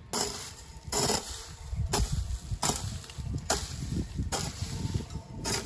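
A hoe chopping into the soil in steady strokes, about seven sharp thuds a little under a second apart.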